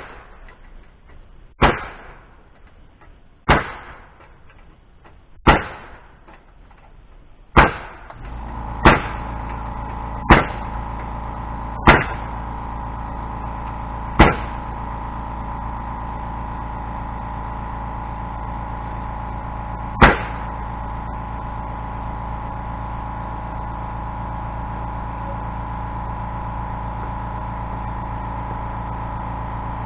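Single sharp bangs of fastening work on wooden framing, about two seconds apart, thinning out later. About eight seconds in, a steady machine hum starts and keeps running.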